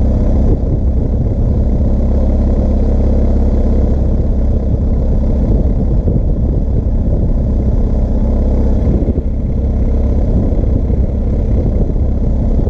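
BMW R1250GS Adventure's 1254 cc boxer twin running steadily with a low engine note as the bike rolls slowly over sand, with a brief dip about nine seconds in.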